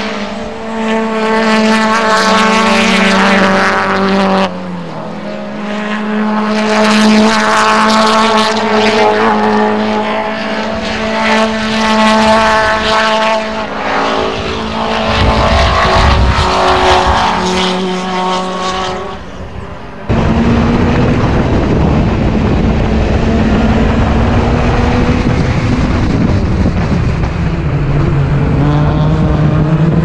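Vintage racing sedans at speed on a road course, their engines running hard with small rises and falls in pitch as they shift and pass. The sound changes abruptly twice, and in the last third a heavy low rumble lies under the engine note.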